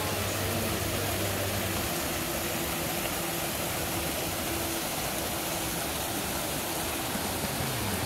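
Mountain creek rushing and splashing over rocks in a steady hiss, with a few low sustained tones underneath.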